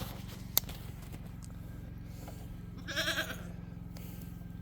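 A goat bleats once, briefly, about three seconds in, a short wavering call. A steady low hum runs underneath, with a single sharp click about half a second in.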